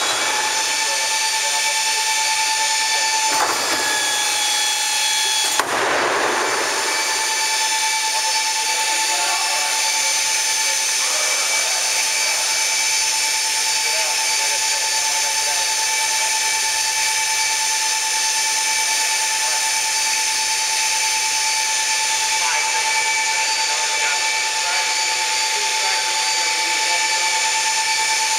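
Steady high whine of the hydraulic power driving a Boeing 737's bucket-type thrust reverser. About three and a half seconds in, and again near six seconds, a rushing hiss as the reverser buckets swing open, the second ending in a clunk.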